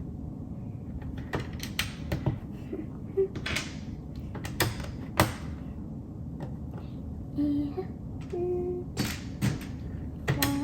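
Small plastic LEGO pieces being handled and pressed onto studs: scattered sharp clicks at irregular intervals.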